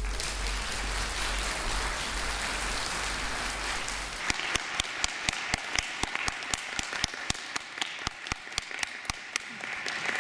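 Audience applauding. About four seconds in, one pair of hands close by stands out, clapping sharply about four times a second over the thinner applause.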